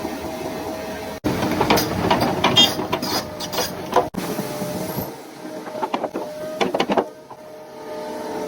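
Backhoe loader working: the engine and hydraulics run with a steady whine, under bouts of rapid metallic clanks and knocks. The sound breaks off suddenly a few times.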